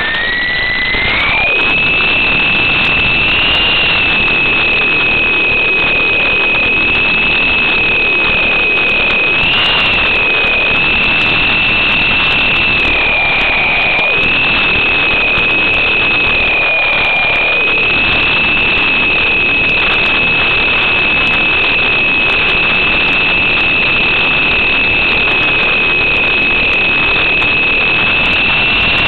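Small electric coaxial RC helicopter's motors and rotors whining, heard up close through the camera mounted on it. The whine climbs in pitch over the first couple of seconds as it spins up and lifts off, then holds steady in flight with small wavers in pitch as the throttle changes.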